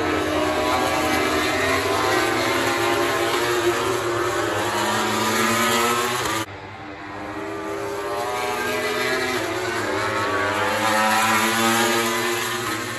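MotoGP racing motorcycles' four-cylinder 1000 cc engines at high revs as bikes pass on track, the engine notes rising and falling in pitch. The sound drops sharply about six and a half seconds in, then builds again as another bike approaches.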